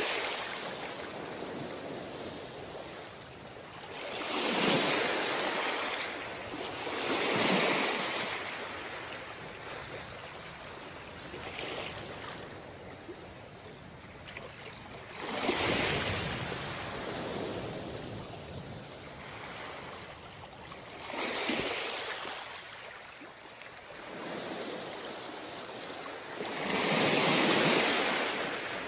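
Ocean surf breaking on a beach: a steady wash with about six waves that each swell into a loud rush and then fade away.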